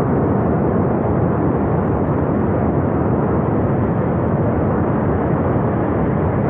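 Flash-flood torrent rushing down the valley: a loud, steady roar of water and debris.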